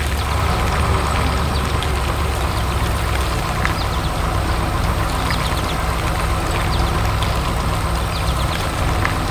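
Heavy construction machine's engine running steadily at a low idle-like rumble, with faint scattered ticks over it.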